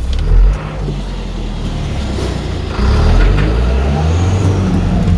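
Motor vehicle engine labouring along a rough, badly rutted dirt road, working harder and getting louder about three seconds in.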